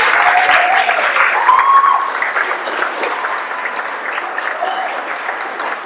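A roomful of guests applauding, with a few voices calling out over the clapping in the first two seconds; the applause slowly dies down.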